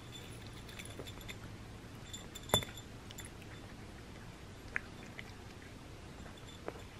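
A cat eating dry kibble from a small ceramic dish: faint licking and mouth sounds with scattered small clicks, and one sharper click about two and a half seconds in. The kibble is swallowed whole rather than crunched, so there is no crunching.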